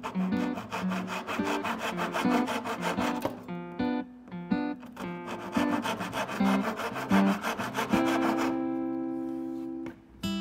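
Fine-toothed handsaw cutting through wood in quick rasping strokes, pausing briefly around four seconds in and stopping about eight seconds in. Acoustic guitar music plays underneath, and a strummed chord rings on alone once the sawing stops.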